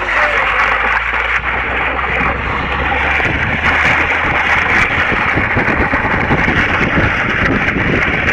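Steady rushing noise of a car moving slowly with its window open, with wind buffeting the microphone from about three seconds in.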